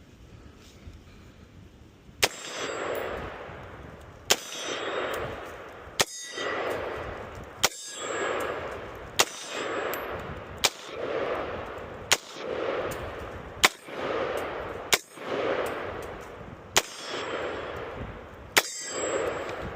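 Custom AR-15 rifle firing slow, deliberate single shots of green-tip 5.56 rounds, about eleven shots roughly every one and a half to two seconds, each followed by a ringing echo that dies away.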